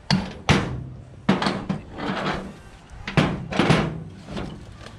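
A hammer striking metal: about seven sharp knocks in quick groups, each with a short ring.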